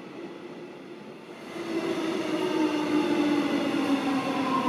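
Electric subway train's traction motors whining beside the platform, louder from about a second and a half in, with one low tone slowly falling and a higher tone rising.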